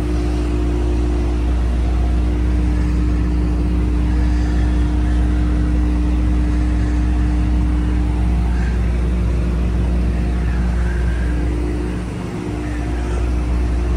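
Large diesel engine idling steadily, a constant low drone.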